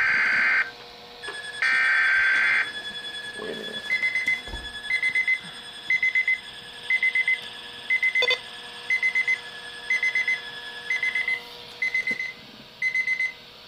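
Two bursts of shrill emergency-alert data tones, then an alert receiver's alarm beeping. The alarm gives short high beeps in quick groups of three or four, about one group a second, signalling an incoming weather warning.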